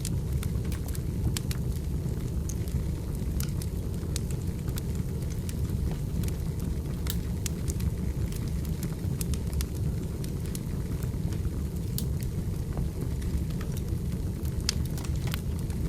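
Wood fire burning, a steady low rumble with scattered sharp crackles and pops from the burning firewood.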